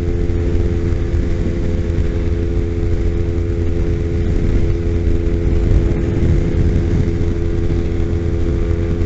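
Kawasaki Ninja 250's parallel-twin engine running steadily at high revs in sixth gear at freeway speed, its even drone holding pitch, over a low rumble of wind rushing past the bike.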